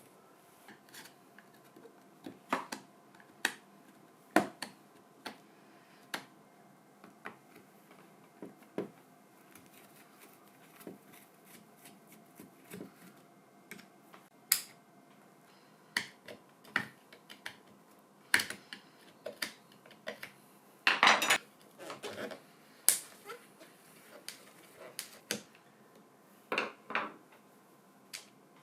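Hands working on an old cordless drill and its parts: scattered clicks, taps and clinks of hard plastic and metal, with a short clattering rattle about 21 seconds in and another cluster near the end.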